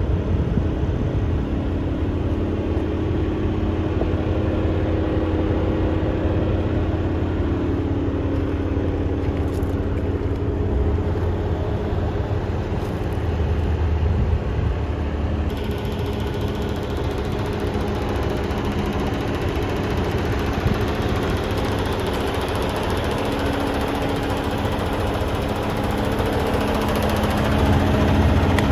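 Peterbilt 367's Cummins ISX diesel engine idling steadily with a low, even hum. About halfway through, a brighter hiss comes in suddenly.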